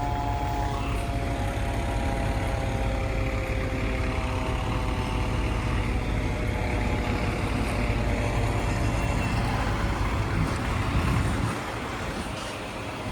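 Heavy diesel engine of a fire truck running with a steady low rumble. A faint whine falls slowly in pitch over the first several seconds, and the rumble drops briefly near the end.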